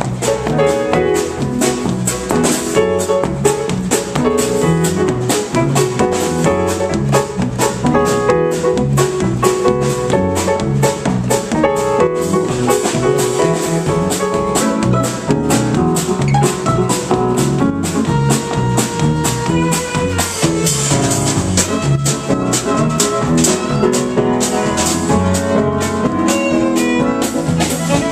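Live band playing an instrumental number: a drum kit keeps a steady beat under keyboards and other instruments.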